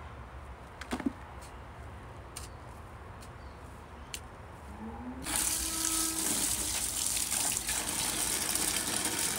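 Water starts running hard from a tap a little past halfway through, a steady rush that opens with a short whine. Before it comes on there is only a knock about a second in and a few faint clicks.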